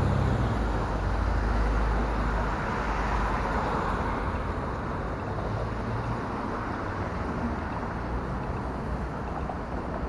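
City street traffic: passing cars' engines and tyre noise, with a close vehicle's engine rumbling loudest in the first couple of seconds before fading into the general traffic hum.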